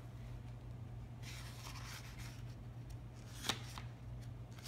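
Hand handling the paper pages of a picture book: a soft rustle of skin rubbing paper, then a single sharp tap about three and a half seconds in, over a low steady hum.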